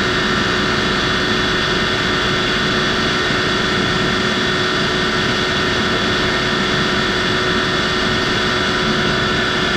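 Eaton 20 hp air-cooled rotary screw air compressor running: a loud, steady roar with a constant whine of several fixed tones over it.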